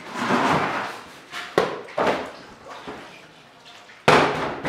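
Bread dough being worked by hand on a steel worktable: soft slaps and sharp knocks against the metal, the loudest a sudden bang near the end.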